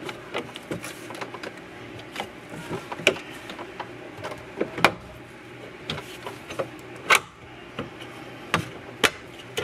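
Porsche 997 A/B pillar plastic trim panel being pulled free by hand: irregular sharp clicks and knocks of the retaining clips and the panel, with creaking and rubbing plastic. The loudest click comes about seven seconds in.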